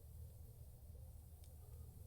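Near silence: a faint steady low rumble, with one faint tick about one and a half seconds in.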